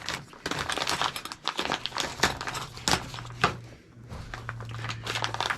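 Plastic packaging crinkling and rustling as it is handled, in irregular crackly bursts, over a steady low hum.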